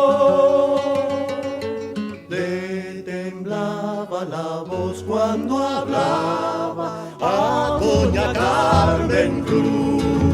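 Background music: a folk song on acoustic guitar with a singing voice.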